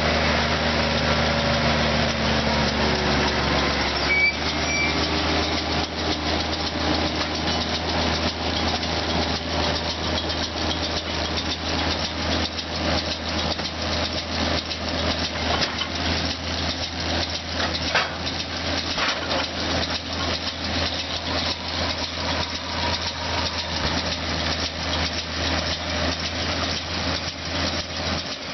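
Case IH Maxxum 140 tractor's diesel engine running steadily, under a dense, fast mechanical rattle. Its tone shifts a little, with a short click, about four seconds in.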